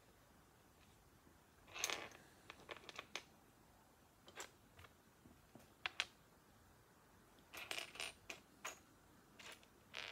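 Small plastic Lego pieces clicking and clattering as they are handled and fitted together, in a faint scatter of short clicks with small clusters about two seconds in and again around eight seconds in.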